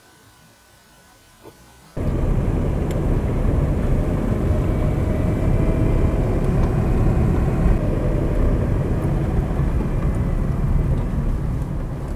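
Quiet for about two seconds, then a sudden cut to the loud, steady rumble of a vehicle driving on a tarred road: road and wind noise, heaviest in the low end, with a faint steady whine over it.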